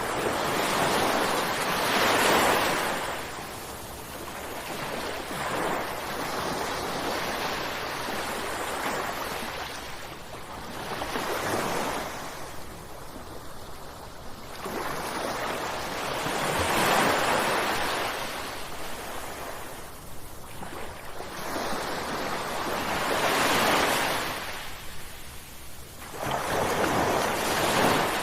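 Ocean waves crashing, each one swelling and fading away, a new wave every four to six seconds.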